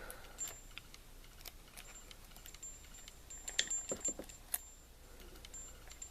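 Lock pick and tension wrench working the pins of a small brass padlock: scattered light metallic clicks and ticks, with a busier cluster of clicks a little past halfway.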